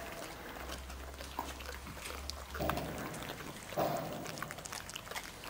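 Puli dog growling twice in short bursts over its raw cattle bone, about two and a half and four seconds in.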